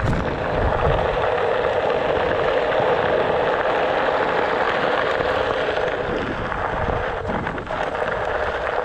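Onewheel XR's single wide tyre rolling over loose gravel: a loud, steady crunching crackle.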